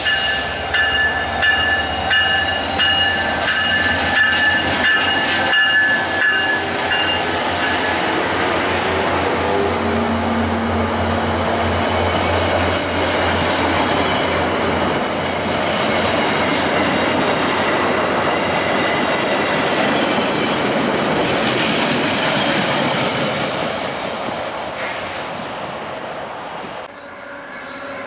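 VIA Rail F40PH diesel locomotive (EMD two-stroke V16) and its LRC passenger cars passing close by. Steady high-pitched tones ring for the first several seconds over the locomotive's engine, then the cars roll past with a continuous rumble that fades about 25 seconds in.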